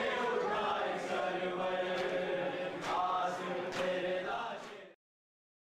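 Group of men chanting a noha in unison, with sharp matam chest-beating slaps about once a second. The sound fades and cuts off about five seconds in.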